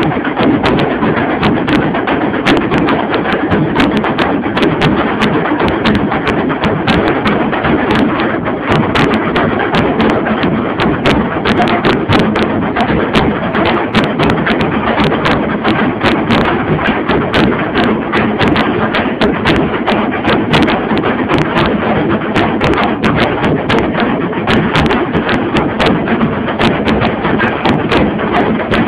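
A tasa drum ensemble playing loud, fast, continuous drumming: a dense clatter of stick strikes that never pauses.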